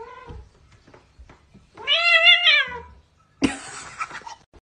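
Domestic cat meowing: one long, drawn-out meow about two seconds in, then a sudden noisy sound lasting about a second near the end.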